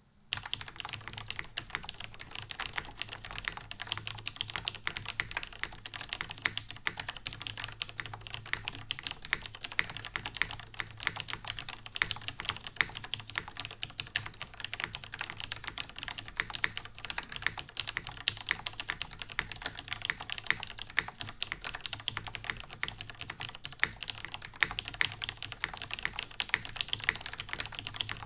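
Continuous fast typing on an NCR-80 R2 mechanical keyboard in a plateless tray mount, with lubed retooled Cherry MX Red linear switches and GMK keycaps: a dense, even stream of keystrokes that starts abruptly at the beginning.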